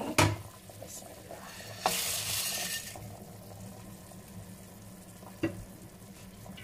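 Dry spaghetti being put into a pot of boiling salted water. A sharp knock comes just after the start and another about two seconds in, followed by about a second of hiss; a further knock comes near the end, over a steady low hum.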